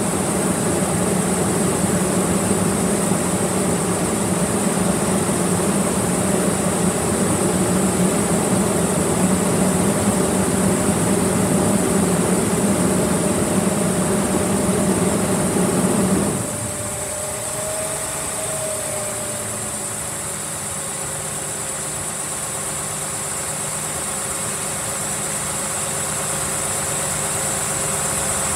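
2007 Cummins ISX inline-six diesel engine running in the truck. About sixteen seconds in, the loud, rough running noise drops away suddenly, and a quieter, steadier idle hum remains; its pitch rises slightly, then settles.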